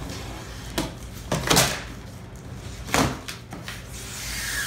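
Large cardboard shipping box being opened: a utility knife slitting the packing tape, then the stiff cardboard flaps scraping and being folded back, with two loud scraping sweeps about a second and a half and three seconds in.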